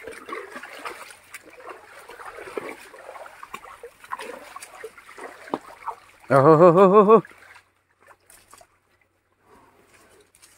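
Rustling and splashing noises, then a little past halfway a loud animal call lasting about a second, its pitch wavering rapidly like a bleat.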